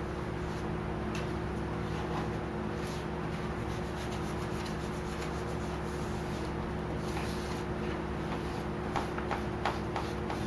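Vinyl wrap film being rubbed and pressed down along the edges of a Jeep grille, a soft scratchy rubbing over a steady low hum, with a few light clicks near the end.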